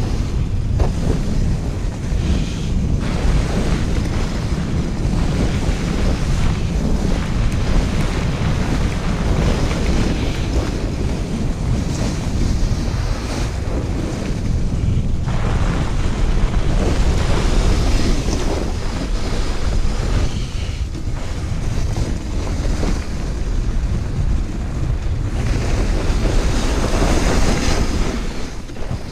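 Wind buffeting an action camera's microphone as a toboggan slides fast down a packed-snow track, with the runners scraping over the snow. The rush surges up and down as the sled speeds along.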